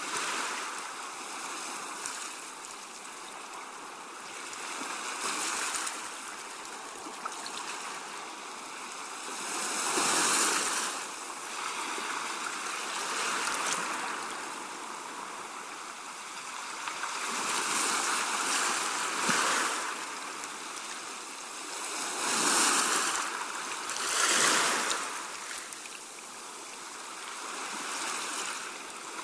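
Sea wash: small waves surging in and draining back over the shore in a continuous hiss, swelling louder every few seconds, most strongly about ten seconds in and again twice near the three-quarter mark.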